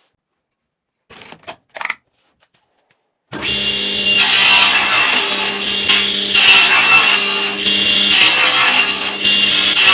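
A few short scrapes, then about a third of the way in a power tool starts up loud: a steady motor whine under noisy wood-cutting sound that swells in repeated passes about a second long.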